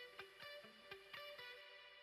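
Quiet background music of quick plucked string notes, about four a second, that stop about one and a half seconds in, leaving the last chord ringing and fading away.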